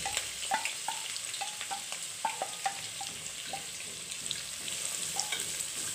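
Sliced onions dropped into hot oil in a pot and frying, a steady sizzle with many small crackling pops.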